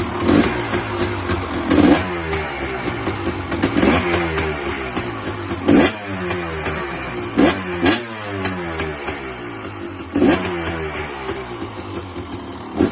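2006 KTM 300 XC-W two-stroke dirt bike engine running after its first start following a full rebuild, revved in short throttle blips about every two seconds that rise sharply and fall back toward idle.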